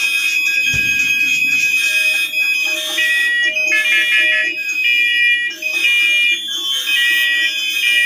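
A collection of fire alarm horns and smoke alarms sounding all at once, loud. Several high electronic tones overlap, some held steady and others pulsing on and off in different rhythms, over a lower repeating pulse.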